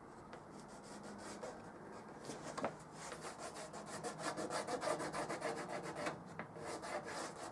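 Pencil drawing on a motorcycle side panel: quick repeated scratching strokes that pick up and grow louder about halfway through, marking a guide line for fitting rivet heads.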